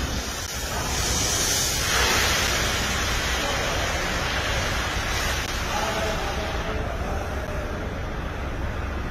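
Water spraying from a car-wash pressure washer: a steady hiss that swells briefly about a second in, over a low steady hum from the pump.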